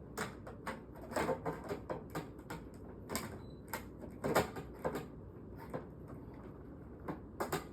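Irregular clicks and knocks as the side pieces of a window unit are handled and fitted back on.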